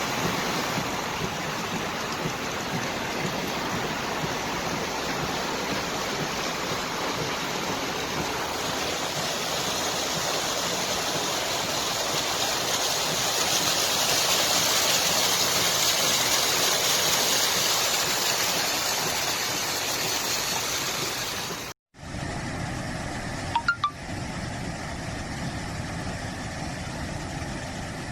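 Floodwater rushing in a strong current, a steady hiss of water that grows louder in the middle. After a sudden cut near the end, a vehicle engine runs steadily, with one brief sharp click.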